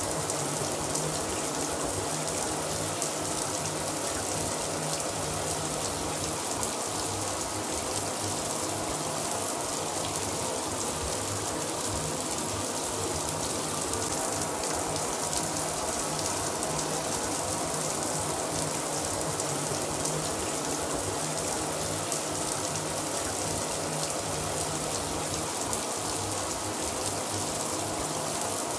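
Shower running steadily, water spraying from the head and splashing down in an even hiss.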